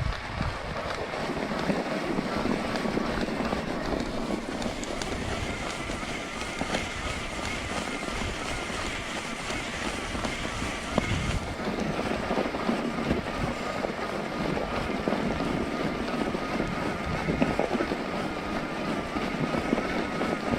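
Riding noise of an e-bike in snow: steady tyre rumble and wind on the helmet-camera microphone, with a faint steady whine running underneath.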